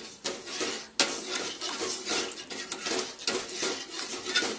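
Steel spoon scraping and clinking against the sides and bottom of a steel pan as a thin yogurt mixture is stirred constantly to keep the yogurt from splitting. There is a sharp clink about a second in.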